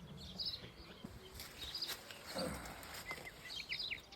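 Small birds chirping in short, high clusters, several times over, against a faint outdoor background.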